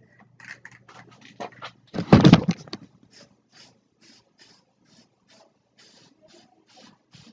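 Aerosol spray can of primer being shaken, its mixing ball rattling inside about twice a second, with one louder knock about two seconds in.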